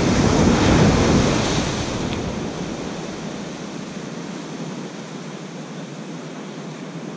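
Ocean surf: a wave breaks and washes up the sand in a steady roar. It is loudest about a second in, then fades as the water spreads across the beach.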